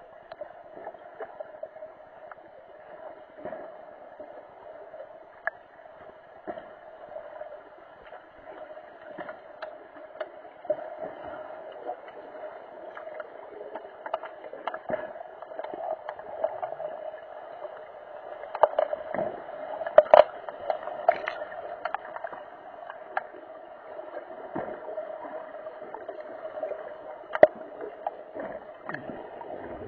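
Pool sound heard underwater through an action camera's waterproof housing: a steady muffled hum with scattered sharp clicks and knocks of underwater hockey sticks and the puck on the tiled pool floor, the loudest cluster about twenty seconds in.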